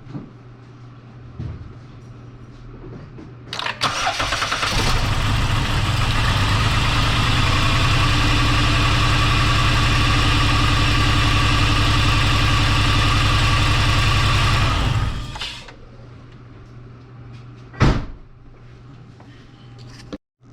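2010 Dodge Grand Caravan's 3.8-litre V6 cranking and catching about four seconds in, running for about ten seconds with a bad multiple-cylinder misfire, then switched off. The owner blames the misfire on a burnt, cracked ignition coil. A single sharp knock comes near the end.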